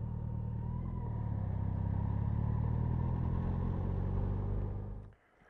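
Motorcycle engine running steadily under way, a low drone with road and wind noise over it. It grows louder about a second in and cuts off suddenly near the end.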